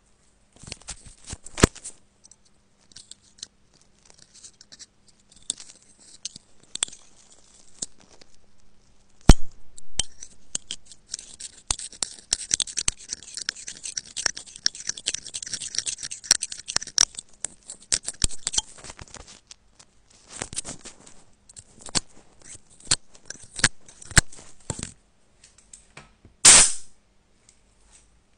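A tool scraping and picking packed lint out of a phone's charging port: irregular clicks and scratches, with a stretch of dense, high scratching around the middle. There is a sharp click about nine seconds in and a short loud burst near the end.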